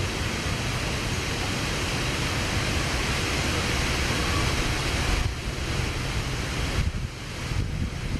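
Wind on the microphone: a steady rushing hiss with a low rumble, easing a little and turning gustier after about five seconds.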